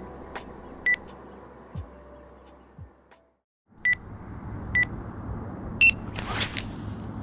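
Electronic carp bite alarms giving single short bleeps about a second apart, with one higher-pitched bleep from a second alarm near the end, followed by a brief rushing noise.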